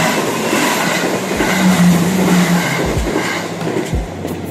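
Electric passenger train passing close at speed: a loud rush of wheels and air with a few low thumps from the wheels over rail joints, easing off as the last car clears near the end.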